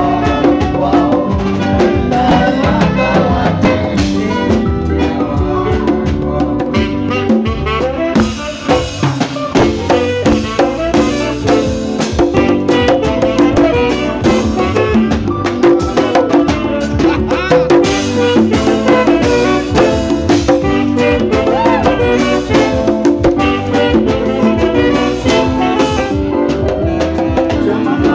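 A live band playing upbeat dance music: electric bass, saxophone and electric guitar over drums, with a steady rhythm and no let-up.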